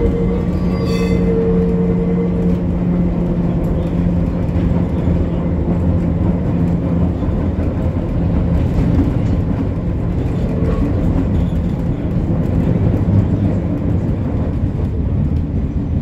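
Gotha T57 tram running along the line, its wheels and running gear rumbling steadily on the rails. A steady motor hum runs underneath and fades away after several seconds.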